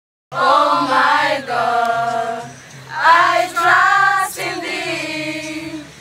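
A group of female voices singing together in phrases over a steady low bass line.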